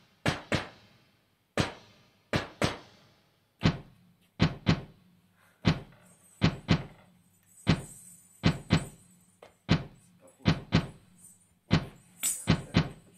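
Percussion knocks in a slow, steady beat, about one single or doubled hit per second, opening an instrumental piece. A faint low hum sits under them from a few seconds in, and a high rattling hiss joins near the end.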